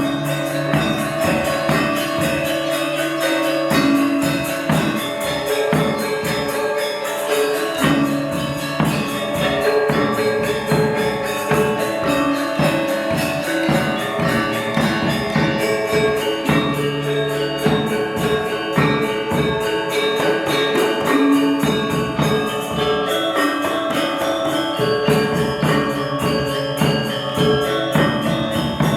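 Balinese gamelan gong ensemble playing: struck bronze metallophones in a fast, dense stream of notes, with deeper sustained gong tones underneath.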